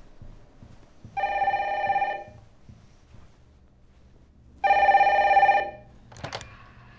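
Telephone ringing: two electronic rings, each about a second long and about three and a half seconds apart. A brief clatter comes near the end as the call is picked up.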